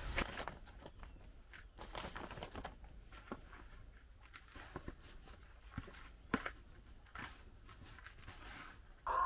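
Hands scooping and stirring loose potting compost from a plastic sack into a plastic bucket: soft, faint rustling with a few light ticks and taps scattered through.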